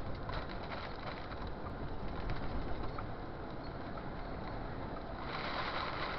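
Inside a truck cab driving on the highway: steady engine and road noise with scattered ticks of drops striking the windshield, then about five seconds in a sudden, dense hiss as the hailstorm's downpour hits the cab.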